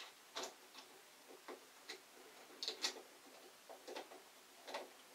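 Faint, irregular metallic clicks and ticks of a flathead screwdriver turning the screw at the centre of a chrome shower mixer control.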